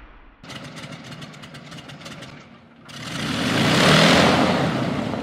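Logo-animation sound effect: an engine-like rapid rattling buzz, then about three seconds in a swelling rush that peaks a second later and fades away.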